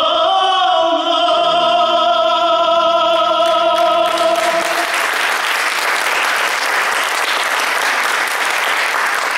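A classical male voice holds one long note over sustained grand piano chords. The note and the piano end about halfway through, and audience applause fills the rest.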